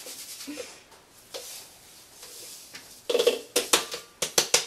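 Faint sandy hiss of granulated sugar pouring, then, a little over three seconds in, rapid tapping of about six or seven knocks a second: a measuring cup rapped against the mixing bowl to knock out the last of the sugar.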